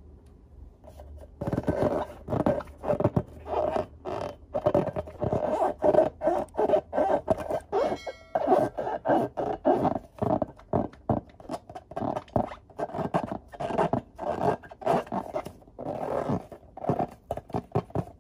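Hands squeezing and rubbing a filled latex balloon, the rubber squeaking and squishing in quick, irregular strokes that start about a second and a half in.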